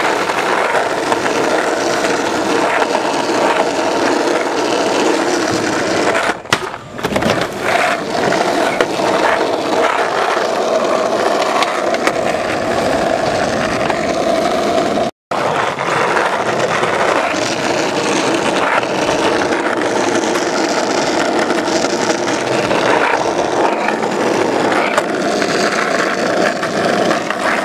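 Skateboard wheels rolling on asphalt, a steady rumble. It is briefly cut off twice, about six and fifteen seconds in.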